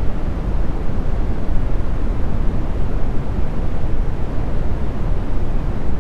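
Brown noise: a steady, even low rumble of noise, strongest in the bass and dull toward the top, with no pattern or events.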